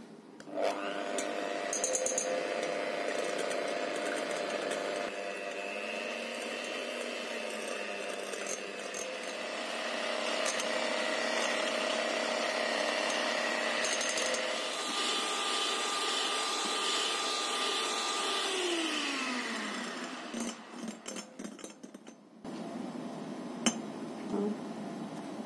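Electric hand mixer running, its beaters whisking eggs and batter in a glass bowl. About twenty seconds in, the motor's pitch falls as it slows and stops, followed by a few light clicks.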